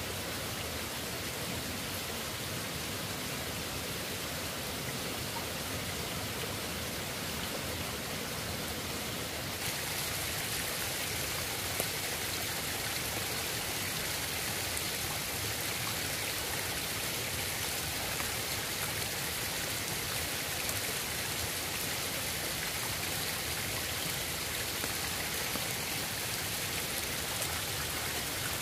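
Steady rush of water, an even hiss with no breaks; the hiss grows a little stronger about ten seconds in.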